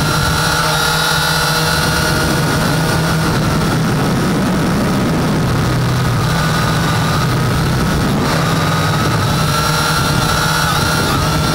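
Syma X8 quadcopter's motors and propellers running steadily in flight, heard close up from a camera on the drone itself. The buzz holds a few steady tones whose pitch wavers and shifts a little as the throttle changes, with the lowest tone dropping for a few seconds in the middle.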